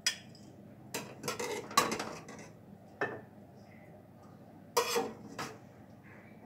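Metal spatula scraping and knocking against a wok and a ceramic plate while cooked semolina is scooped out and served: a string of separate clinks and scrapes, the loudest a little under two seconds in and again near five seconds in.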